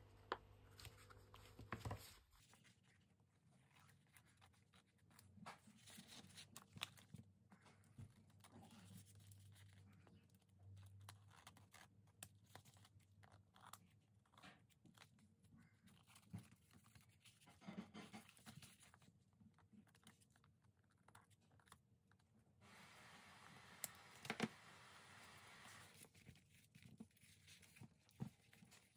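Faint rustling and handling of paper: sheets and a small folded paper booklet being picked up, shifted and leafed through, with scattered soft taps and crinkles.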